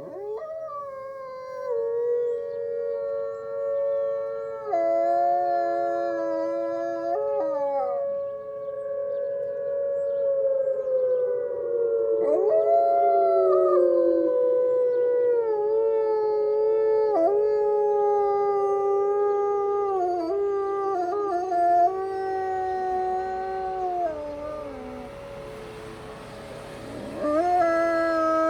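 High-content wolfdogs howling, two or more voices overlapping in long held notes that slide slowly down in pitch. The howling breaks off briefly near the end, then starts again.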